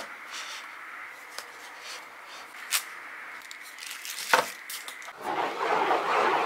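Handling of a packaged gyroscope: soft rustling and small clicks, with a sharp snap about four seconds in. From about five seconds the gyroscope's contact ball is rolled across the work surface to spin up its rotor, a rough rolling noise that quickly grows louder.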